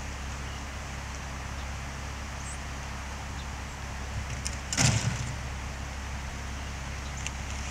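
Steady low outdoor rumble and hiss, with one brief, louder burst of noise about five seconds in.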